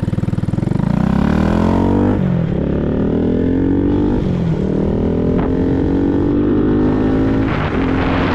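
Honda Grom's single-cylinder engine pulling away and shifting up through the gears: the engine note climbs, then drops at each shift, three times. It is breathing through a cheap aftermarket exhaust with its baffle in.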